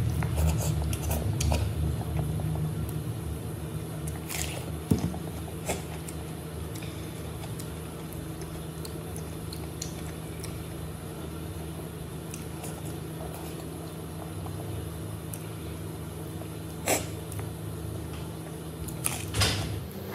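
A man eating şırdan, stuffed lamb stomach, by hand: chewing and wet mouth sounds with scattered clicks and rustles of the food being handled, over a steady low hum.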